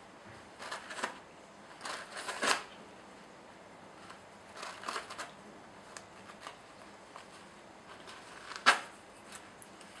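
Cat biting and clawing a toilet paper roll: short bouts of paper rustling and tearing, with a sharp, loud crackle near the end.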